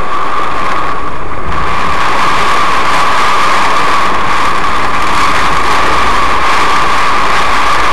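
Heavy cloudburst rain and wind beating on a car, picked up loud and unbroken by the dashcam inside, with a steady whine running through it. A low rumble thickens about a second and a half in.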